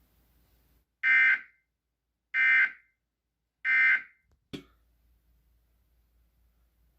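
Emergency Alert System SAME end-of-message data tones: three short, identical buzzy bursts of data tones a little over a second apart, closing the EAS test. A single click follows about a second after the last burst.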